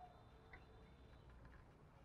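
Near silence: a pause in a spotted dove's cooing, with a faint tick about a quarter of the way in.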